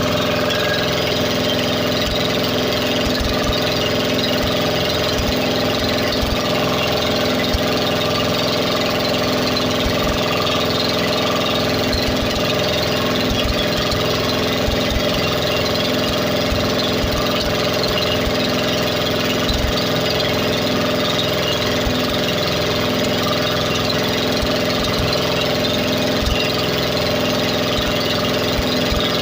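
Combustion engine running at a steady idle, its pitch and loudness unchanging.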